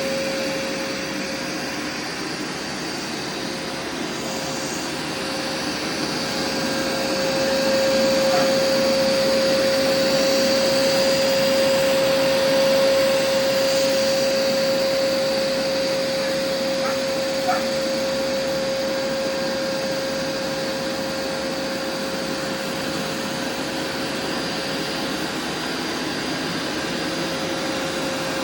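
Hoover SmartWash Pet carpet washer running, a steady motor whine over a constant rush of suction, swelling a little louder about eight seconds in and settling back after about fourteen seconds.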